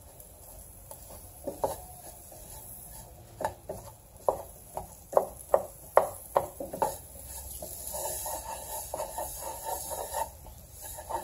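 Wooden spoon stirring a thick roux of chopped onion, butter and flour in a saucepan, knocking and scraping against the pan. A run of sharp taps comes from about a second and a half in, then softer, steadier scraping near the end.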